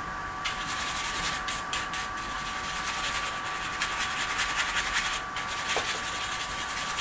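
Stiff bristle brush scrubbing a thin layer of oil paint onto a stretched canvas, in quick, repeated short strokes.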